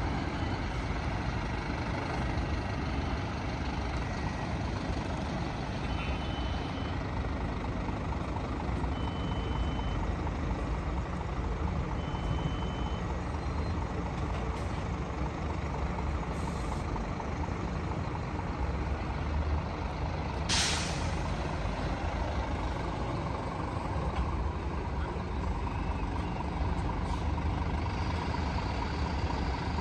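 Scania K440 coach's 13-litre six-cylinder diesel running steadily at low speed while the double-decker coach manoeuvres. A few short high beeps come in the first half, and a sharp burst of compressed-air hiss from the air brakes comes about two-thirds of the way through.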